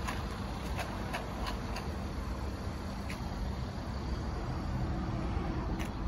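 Steady low vehicle rumble with a faint steady hum, broken by a few light ticks.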